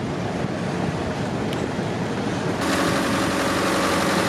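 Heavy road-works machinery running: an engine rumble, changing about two and a half seconds in to a closer, steady drone with a hiss from the diesel engines of an asphalt paver and a dump truck.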